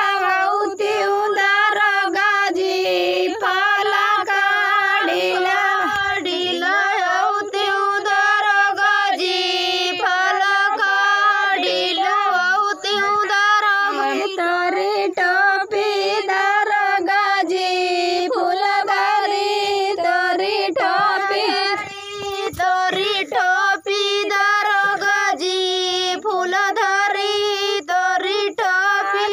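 Women singing a chohkra, a rural North Indian women's folk song of wedding celebrations, in a high voice in continuous sung phrases.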